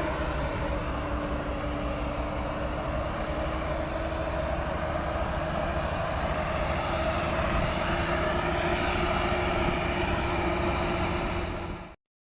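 Diesel engine in runaway, running at high, steady revs on its own oil with a constant whine over the engine noise. It cuts off abruptly near the end.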